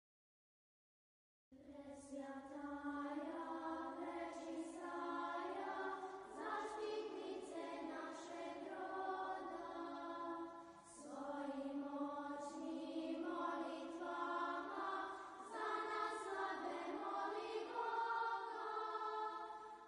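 Orthodox church choir singing a hymn to the Mother of God in long sustained phrases, starting after about a second and a half of silence.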